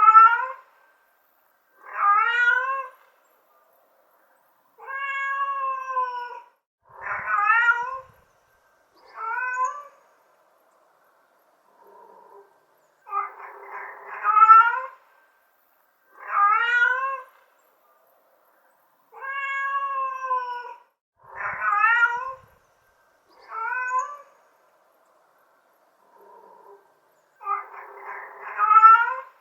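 Domestic cat meowing again and again, about a dozen separate meows roughly two seconds apart, each with a bending, rise-and-fall pitch. The same run of meows comes round a second time about halfway through.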